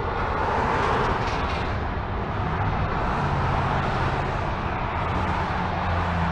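Steady multi-lane freeway traffic passing below: an even rush of tyre and road noise from many cars and pickups. It swells a little about a second in, and a low steady drone joins about halfway through.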